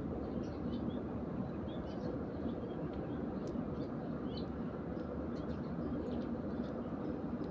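Eurasian tree sparrows chirping in short, faint, scattered notes over a steady low rumble of background noise.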